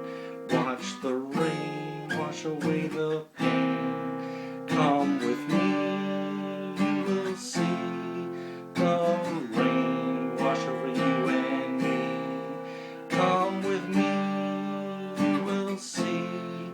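Acoustic guitar strumming chords in a mellow blues-rock song, each strum ringing out and fading before the next, with no vocals.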